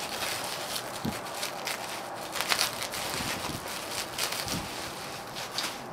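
Plastic bubble wrap crinkling and crackling as it is pulled and unwrapped by hand.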